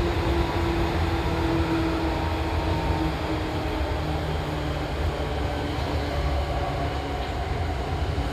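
Original Seibu 2000-series electric train running at speed: a steady rumble of wheels and running gear with a faint hum held above it.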